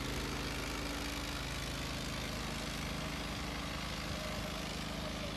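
An engine running steadily at idle, with a steady rushing hiss over it.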